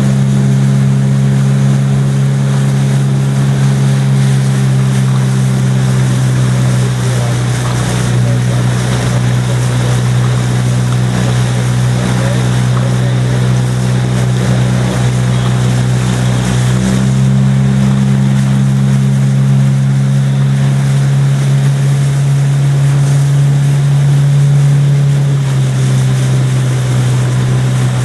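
Motorboat engine running steadily close by, its pitch shifting slightly a few times, over a hiss of water and wind.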